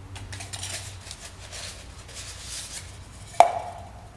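Draw tokens rattled and rummaged in a container, with a single sharp clink that rings briefly about three and a half seconds in.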